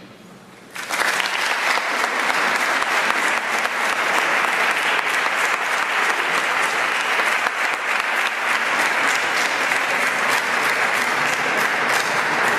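Audience applauding. It starts suddenly about a second in and stays steady.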